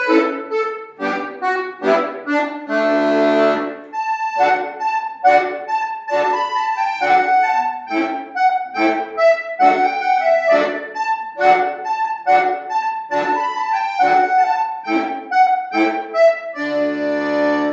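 Solo accordion playing a dance tune in short, detached chords with a steady pulse, with a long held chord about three seconds in. It ends on a held final chord that stops near the end.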